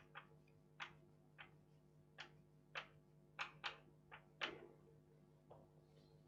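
Chalk tapping and scratching on a blackboard as equations are written: about ten short, sharp taps at irregular intervals, stopping about five and a half seconds in, over a faint steady hum.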